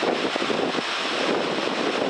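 Steady rushing noise of heavy rain, with wind on the microphone.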